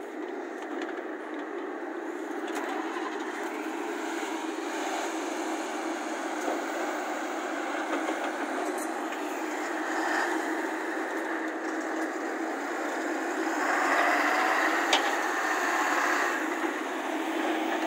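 Heavy diesel engine of a loaded tipper dump truck running steadily. It grows louder about 14 s in as the truck comes close past, with a single sharp click about a second later.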